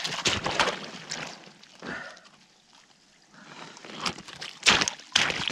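Splashing and knocking as a large splake is hauled up out of an ice-fishing hole, in short irregular bursts with a near-silent second in the middle.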